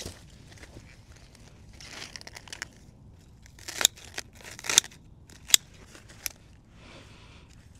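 Hand pruning shears snipping through German iris leaves close to the ground. There are several sharp snips in quick succession past the middle, with rustling of the leaves being gathered before and after.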